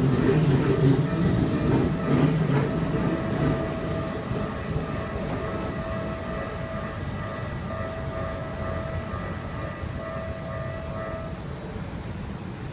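Electric commuter train running over a level crossing, its wheels rumbling and clacking loudly and then fading away within the first few seconds. The crossing's warning signal keeps sounding as a steady ringing tone and stops about eleven seconds in.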